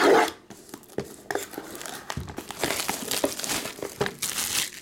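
Plastic shrink-wrap on a trading card box being slit and pulled off. A loud rip comes right at the start, then crinkling and crackling as the wrap is torn away.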